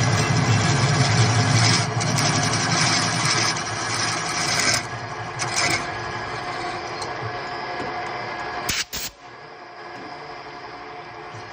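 A machine runs with a steady low hum and noise, loudest in the first few seconds, then eases off. At about nine seconds it breaks off sharply with a couple of clicks, and a quieter steady running sound follows.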